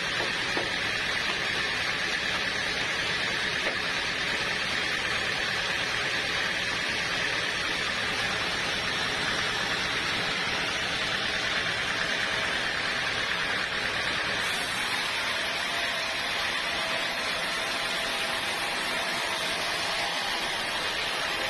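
Sawmill saw running with a steady hiss and whine; a brighter hiss joins about two-thirds of the way through.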